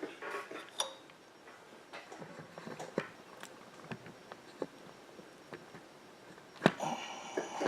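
Scattered light clicks and taps of handling at a workbench, with one sharper click near the end.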